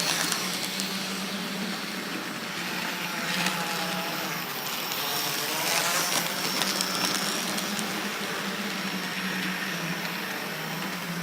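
H0-scale model tram running on track: a steady electric motor hum, with light clicks from the wheels and a faint rising whine about midway.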